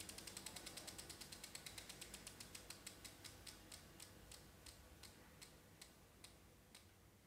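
Faint, even ticking of an electric bicycle's rear-hub freewheel ratchet as the free-spinning rear wheel coasts down: the clicks start rapid and gradually slow to about two a second.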